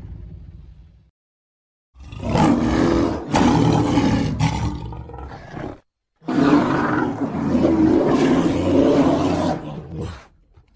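Two long vocal sound effects of a cartoon pig character, each about four seconds, the second starting just after the first stops.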